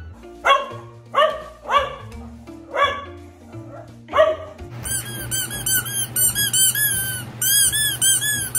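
A dog barks about six times in sharp, separate barks over background music with a steady bass. About five seconds in, a fast, even run of high-pitched squeaks, several a second, takes over.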